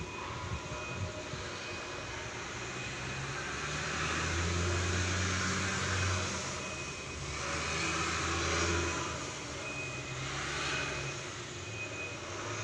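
A heavy engine running with a low hum that swells twice, over a steady rushing hiss.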